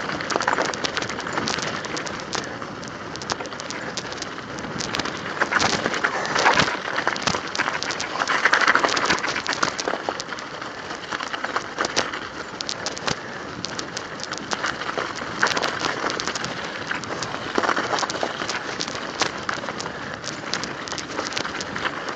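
Mountain bike tyres rolling over icy, crusted snow: a continuous crackling crunch full of sharp little cracks, growing louder for a moment every few seconds.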